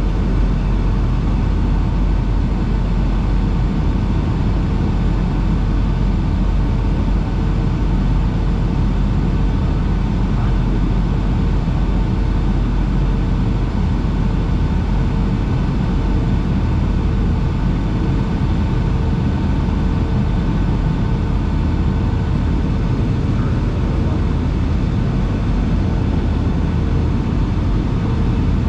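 Steady cabin noise inside a Boeing 757-300 over the wing on approach: a low engine rumble and rushing airflow, with a few faint steady hum tones over it.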